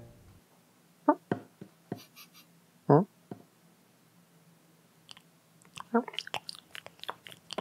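Cartoon cat sound effects: a few short cat vocal noises in the first three seconds, then from about six seconds in, rapid chewing and smacking as the cat eats a fish.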